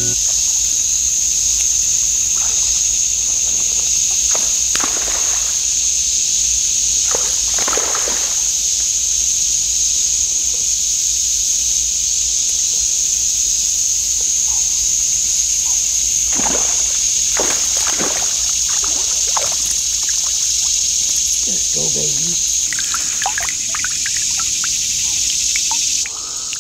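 Steady high-pitched drone of summer insects, with a few short splashing, sloshing water sounds scattered through it.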